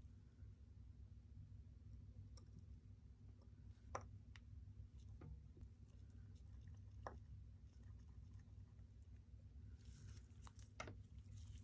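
A handful of faint, sharp clicks of steel watchmaker's tweezers and a screwdriver being handled against a watch movement in its metal movement holder, over a low steady hum. The sharpest clicks come about four seconds in and near the end.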